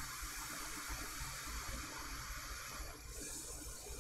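Hot air rework station blowing a steady hiss of air onto the circuit board, set low (235 °C, airflow 75) to soften the coating around the components.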